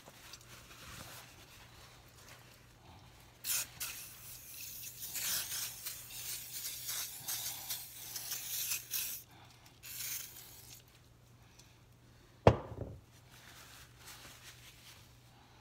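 WD-40 aerosol can spraying penetrating oil onto a rusty double-bit axe head: a hissing spray lasting about five seconds, then a short second spray. About two-thirds of the way through there is a single sharp knock, the loudest sound.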